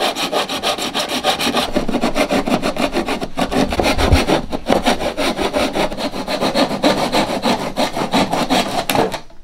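Japanese pull saw cutting a hardwood strip in a plastic mitre block, in quick, even back-and-forth strokes that stop near the end.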